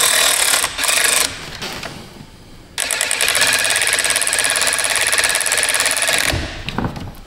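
Powered torque wrench tightening a fastener to a set torque. It runs briefly at the start, then steadily with a fast, even chatter for about three and a half seconds before stopping.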